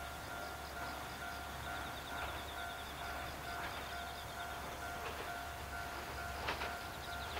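A railway level-crossing warning bell ringing in a steady repeating pattern as an electric train approaches, with a few sharp clicks from the train's wheels on the rails near the end.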